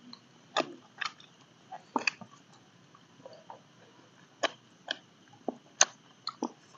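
Spoons clicking and scraping against plastic plates as two people eat, in scattered sharp clicks about a second apart.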